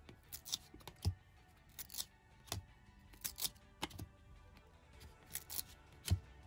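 Trading cards being flipped through by hand: short, irregular swishes and clicks as each card slides across the stack, with a few soft taps.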